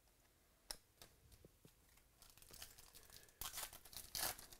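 Foil wrapper of a Stadium Club baseball card pack tearing open and crinkling, loudest in the last second and a half, after a single sharp click just under a second in.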